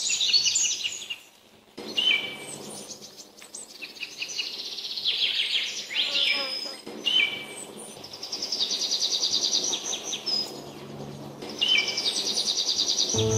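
Several birds singing together: overlapping high chirps, whistled notes and fast trills, with a brief gap about a second and a half in.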